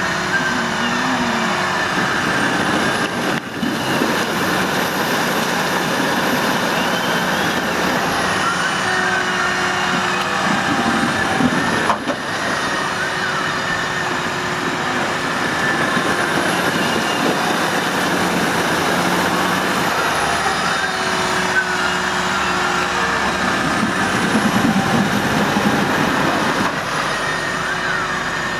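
New Holland tractor engine running hard under heavy load as it tries to pull a loaded muck spreader out of mud, its pitch rising and falling now and then.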